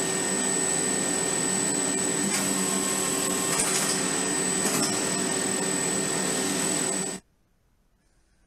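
Alexanderwerk roller compactor with its microbatch unit running: a steady machine hum and whine that cuts off suddenly about seven seconds in.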